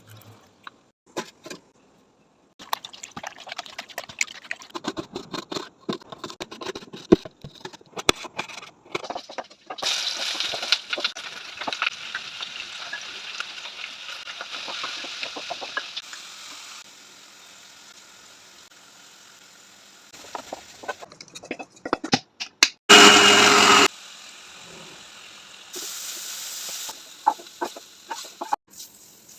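Food-preparation sounds: scattered clicks and knocks, several seconds of steady hiss, and a loud noise about a second long two-thirds of the way through.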